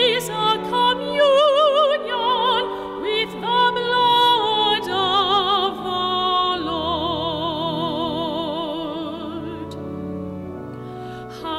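A solo singer with a strong, wide vibrato sings a slow liturgical melody in an operatic style over sustained accompaniment, holding one long note in the second half before it fades near the end.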